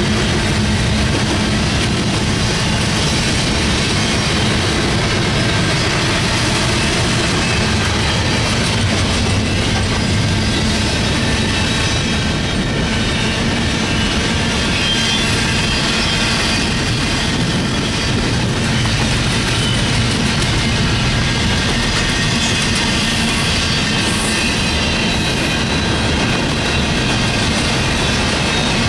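Double-stack intermodal container train's well cars rolling past: a steady rumble and rattle of steel wheels on the rails that holds at one level throughout.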